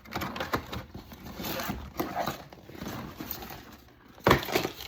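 Takeout food packaging being handled: rustling with scattered light clicks and knocks, and one louder knock about four seconds in.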